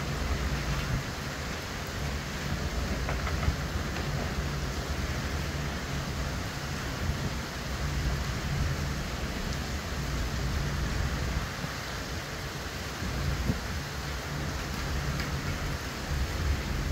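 Hurricane rain pouring down in a dense, steady hiss over a low rumble that swells and fades.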